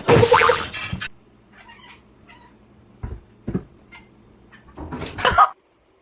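A domestic cat gives a loud, drawn-out meow in the first second. Two short knocks follow around the middle, and a second loud burst comes about five seconds in.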